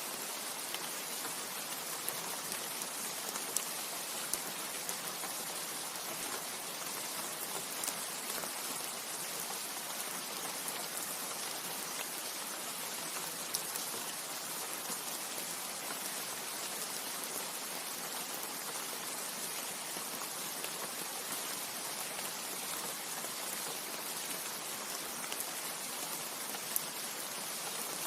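Steady rain falling on leaves, an even hiss with occasional sharper drop ticks.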